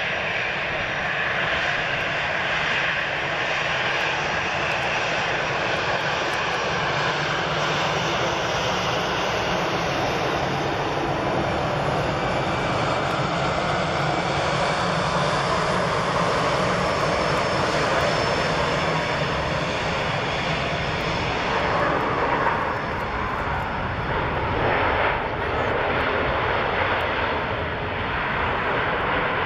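Jet noise of a landing Boeing 777 freighter and its two GE90 turbofans, a steady loud roar as it passes close by on final approach and reaches the runway, swelling in level a couple of times near the end.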